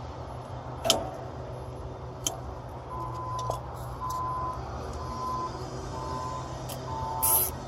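Two sharp clicks, then from about three seconds in a vehicle's reversing alarm beeping about once a second, each beep a steady tone, over a steady low engine hum.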